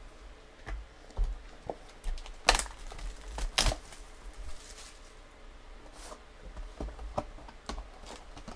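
Trading cards and plastic pack wrapping being handled: crinkling and rustling with scattered clicks and taps, the two loudest crackles about two and a half and three and a half seconds in.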